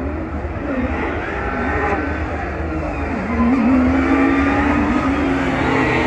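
Porsche 911 GT3 Cup race cars' flat-six engines running at low revs as the cars roll slowly past, the engine note wavering with the throttle. The sound grows louder, with a swell about halfway through.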